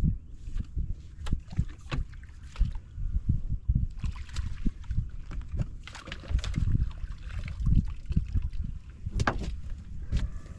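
Irregular knocks, clicks and handling noises in a small fishing boat, with water moving against the hull, as a freshly caught drum is handled.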